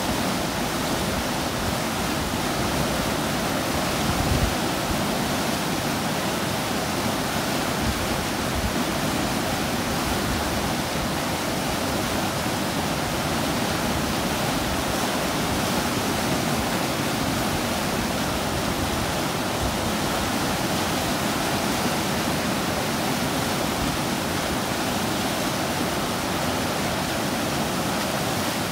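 Steady rushing of whitewater from a river standing wave: rapids churning continuously.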